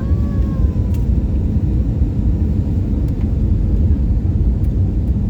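Loud, steady rumble of an Airbus A320's engines and airflow heard from inside the cabin during the landing. A faint whine falls slightly in pitch near the start.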